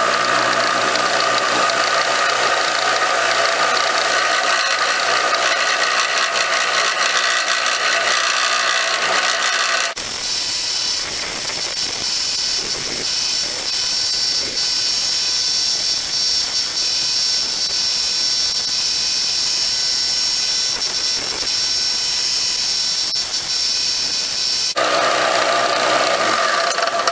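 Small bench belt grinder running with a steady whine. From about ten seconds in until near the end the sound turns to a harsher, higher hiss as the steel tang of a Winchester 1895 receiver is ground against the belt, cutting V-notches along the crack for welding.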